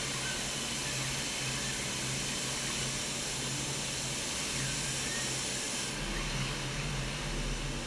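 Steady industrial machine noise in a car factory: an even hiss with a low steady hum. About six seconds in, the high hiss falls away and a deeper rumble comes in.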